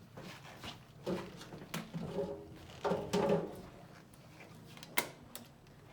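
Low, indistinct voices with handling noises, and one sharp click about five seconds in.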